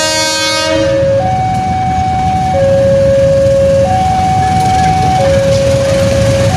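Electronic railway level-crossing alarm sounding two alternating notes, a higher and a lower one, each held for about a second and a half, starting about a second in, over a steady low rumble as a diesel locomotive approaches.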